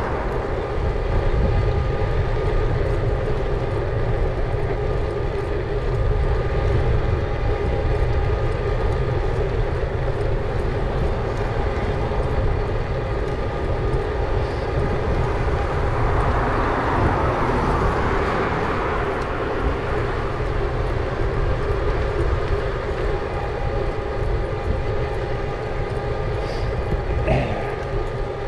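An e-bike in motion: its electric motor runs with a steady, several-toned hum over a constant low rumble of wind on the microphone. A broader hiss swells and fades a little past halfway through.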